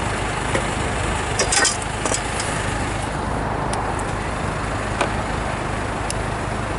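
Steady low engine rumble, with a handful of sharp clicks, the loudest cluster about a second and a half in and single ones scattered after.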